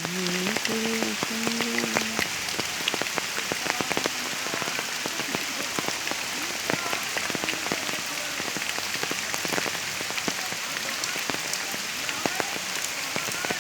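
Steady rain falling on a pond's surface: a dense hiss dotted with many individual drop splashes. A short pitched call, rising and falling in steps, sounds during the first two seconds.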